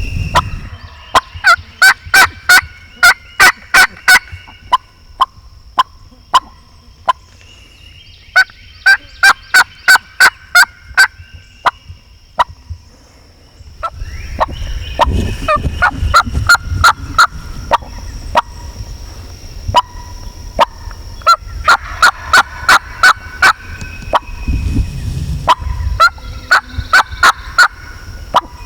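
Loud turkey calling: several runs of sharp repeated notes, each run about eight to ten notes at roughly four a second, with a low rumble underneath in the second half.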